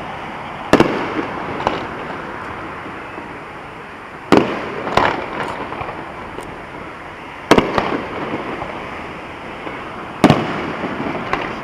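Aerial fireworks display: sharp bangs of shells going off every few seconds, four louder ones with smaller pops between, over a steady background of noise.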